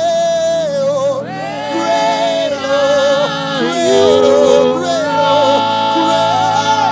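Live gospel worship music: steady held keyboard chords under a voice singing long, wordless, gliding notes with vibrato.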